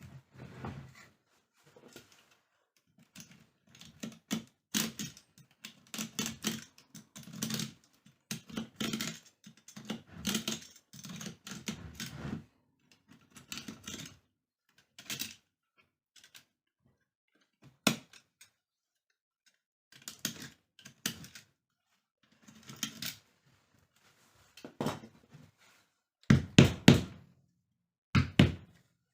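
Irregular knocking, tapping and clatter from hand work on a rattan chair, with a brief lull partway through. A few heavier thuds come near the end.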